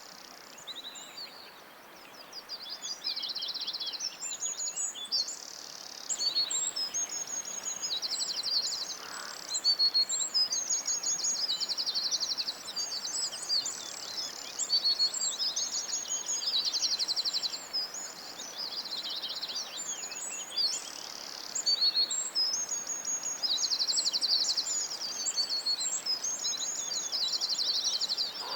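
Lovebirds chattering: a near-continuous run of shrill, high chirps broken by fast, rattling trills.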